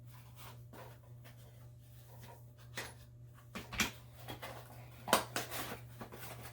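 Handling noises as a small flashlight-style gadget and its packaging are turned over in the hands: scattered clicks, knocks and rustles, the loudest a few seconds in, over a steady low electrical hum.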